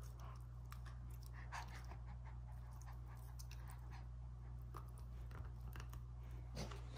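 Pit bull mix puppy chewing a hard plastic Nerf ring chew toy: irregular, crunchy clicks of teeth biting down on the plastic.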